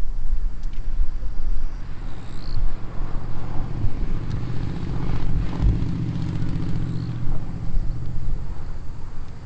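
Engine of a passing vehicle, a low hum that grows louder about halfway through and then fades.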